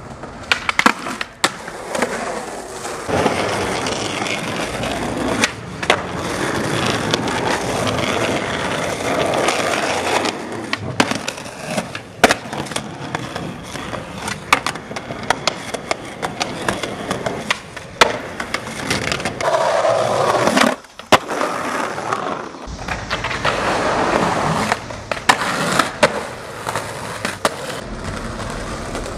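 Skateboard wheels rolling on concrete, broken by many sharp clacks of the board popping and landing, across a string of separate clips.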